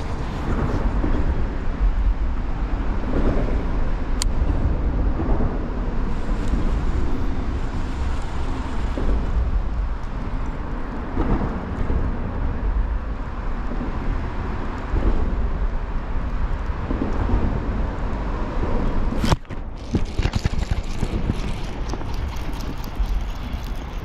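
Wind buffeting the camera microphone: a steady low rumble with no engine tone in it, briefly broken by a sharp cut about nineteen seconds in.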